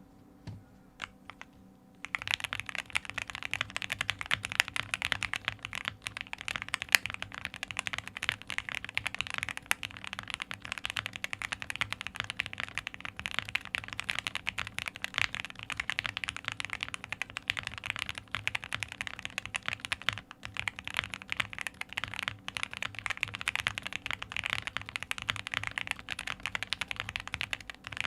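Fast, continuous typing on a custom mechanical keyboard, an OwLab Jelly Epoch with lubed Gateron Ink V2 switches, a PC plate and GMK keycaps: a dense stream of key clacks after a few single key presses in the first two seconds. The switches have a slight spring crunch, which the builder puts down to the TTC 53g springs being tested.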